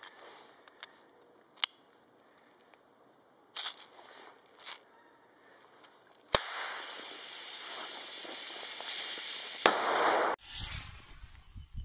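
TLSFX M10 lever-fused airsoft grenade: a few small clicks as it is handled, then a sharp snap as the lever fuse fires, a steady hiss of the burning delay fuse for about three seconds, and a sharp bang near the end as the grenade bursts, with a short loud rush of noise after it that cuts off suddenly.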